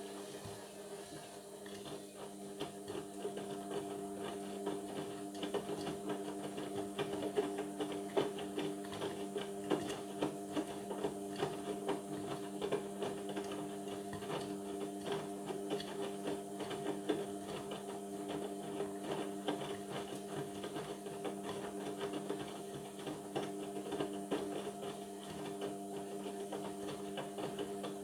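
Indesit washing machine running partway through a Cotton 60 cycle: a steady motor hum with frequent small clicks and ticks throughout.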